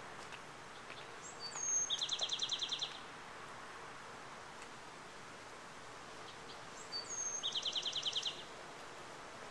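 A songbird sings twice, about five seconds apart. Each song is a short high whistled note sliding down, then a fast trill of about ten notes. Steady outdoor background hiss runs underneath.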